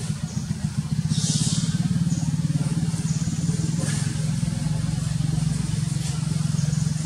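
A small engine running steadily off-camera, a low, even pulsing drone. A brief high hiss about a second in.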